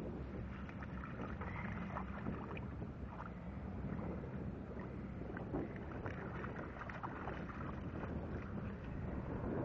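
Steady wind rumble on the microphone, with faint small splashes and water lapping as dogs wade in shallow lake water.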